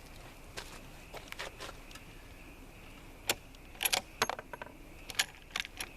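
Small metal objects clinking and clicking: a scatter of short, light clicks that bunch together in the second half.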